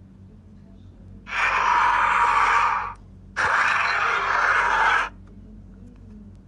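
Skull Crawler creature sound effect: two breathy, hissing rasps, each about a second and a half long, with a short gap between them.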